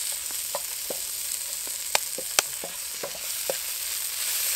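Whole prawns sizzling in hot oil in a paella pan, stirred with a wooden spoon that scrapes and knocks against the pan; two sharper knocks come about two seconds in.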